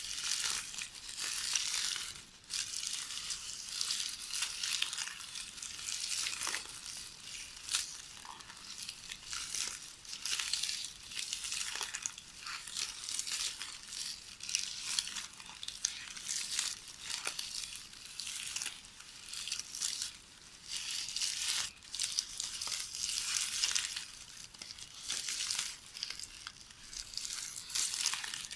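Magnetic VHS videotape ribbon rustling and crackling as it is knitted by hand: a dense, uneven run of crinkles with brief lulls now and then.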